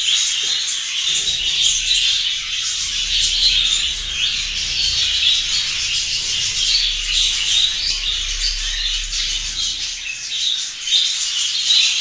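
Large flock of budgerigars chattering and warbling all at once: a steady, dense, high-pitched din of many birds.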